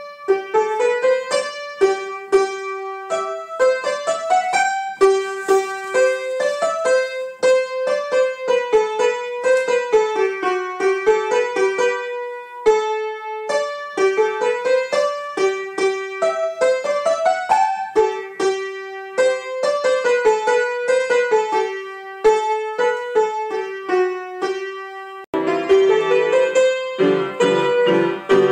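Background piano music: a bright melody of quick, separate notes rising and falling. About 25 seconds in, fuller low chords join in beneath it.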